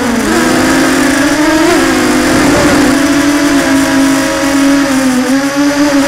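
FPV drone's motors whining steadily, their pitch wavering up and down as the throttle corrects, over a rough low rumble.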